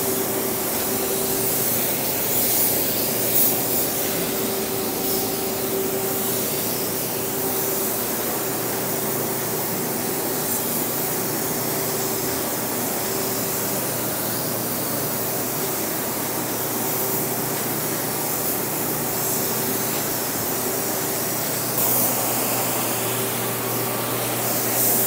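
Steady hiss of air from a gravity-feed automotive paint spray gun laying down base coat, over the continuous hum of the blowers that inflate and ventilate an inflatable spray booth.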